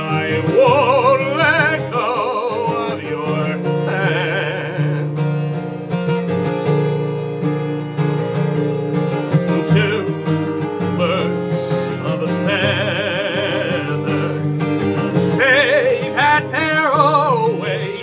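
A man singing with vibrato, accompanied by his own acoustic guitar.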